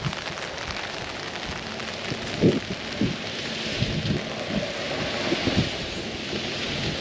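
Steady rain falling on an open umbrella, with a few low, irregular thuds of heavier drops or impacts through the middle.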